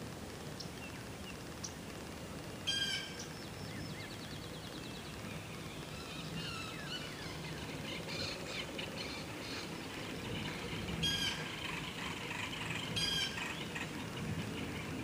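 Several wild birds calling and singing. A short harsh call comes three times, a rapid trill runs about four seconds in, and lighter chirps come in between, over a low steady background hum.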